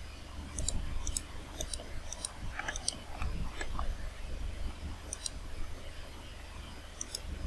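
Computer mouse button clicking, a series of short sharp press-and-release clicks at irregular intervals, roughly one to two a second, placing points one by one, over a low steady electrical hum.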